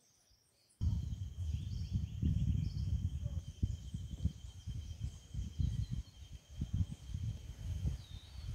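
Wind buffeting the microphone in uneven gusts, starting suddenly under a second in, over a steady high insect drone.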